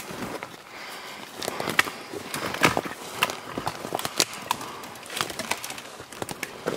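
Footsteps through forest deadfall: boots crunching on dry twigs and brush, with irregular sharp snaps of small branches breaking underfoot.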